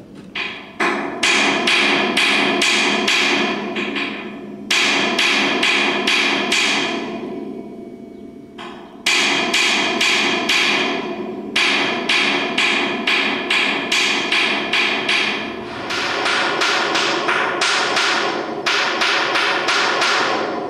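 A hammer striking the sculpture's rusted steel plates, about three blows a second in runs of a few seconds with short pauses between them, each blow ringing.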